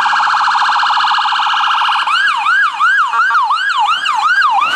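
Ambulance's electronic siren: a very fast pulsing warble that switches about two seconds in to a yelp, the pitch sweeping up and down about three times a second.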